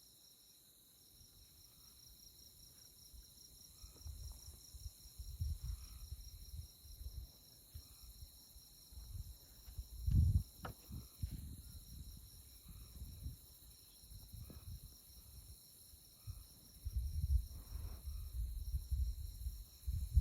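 Night insects chirping in tallgrass prairie: a continuous, rapidly pulsing high trill over a steady high hum. Under it, a low, irregular rumble comes and goes in gusts, loudest about ten seconds in and again near the end.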